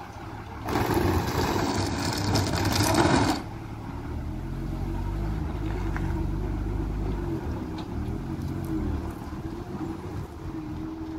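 Heavy diesel engines labouring up a steep hairpin bend under load, their pitch wavering as they pull. Near the start, a loud hissing, rushing noise lasts about two and a half seconds and then gives way to the steady engine drone.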